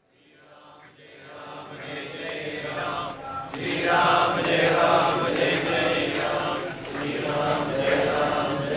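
Voices chanting Vedic mantras, fading in from silence over the first few seconds and then holding steady.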